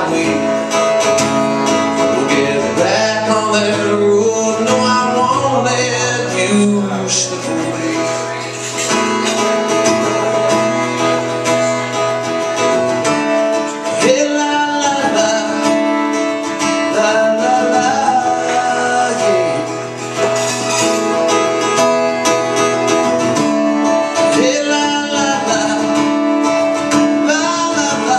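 A man singing a song while strumming an acoustic guitar, heard through a small PA.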